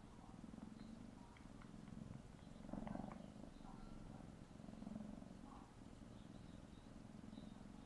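Tabby kitten purring steadily while kneading, a low rapid rumble that swells twice. A few soft lip-smacking clicks come between about one and three seconds in.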